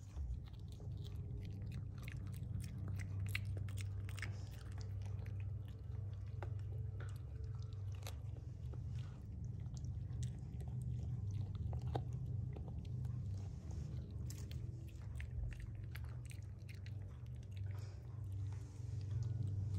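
A small dog gnawing on a chew bone: irregular wet crunches and clicks of teeth on the chew, over a steady low hum.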